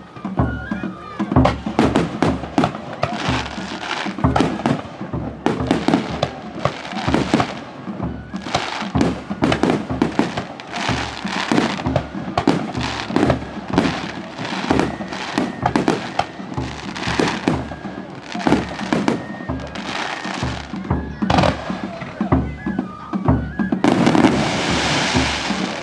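Finale star mine fireworks barrage: aerial shells launching and bursting in rapid succession, many booms a second with no break. Near the end comes a dense crackling hiss.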